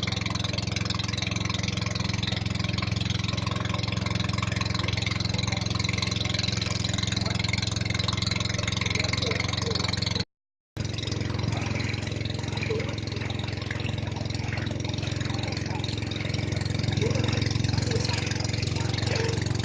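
An engine running steadily at an even speed, with a half-second break of silence about halfway through.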